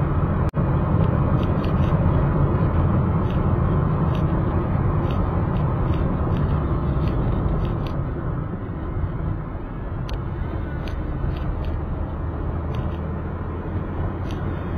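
Car driving along a road, heard from inside the cabin: a steady engine and tyre rumble with scattered light ticks, easing slightly about halfway through.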